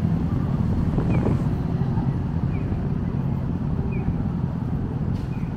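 Japanese accessible pedestrian crossing signal chirping: a short falling bird-like tweet repeating about every second and a half. Under it, steady traffic rumble and wind on the microphone.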